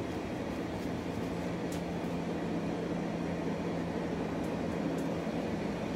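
Forge running with a steady rushing noise and a constant low hum.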